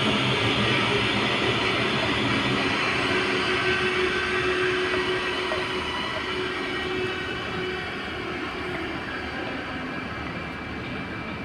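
Steady machinery rumble with a faint held hum and high whine, slowly fading toward the end.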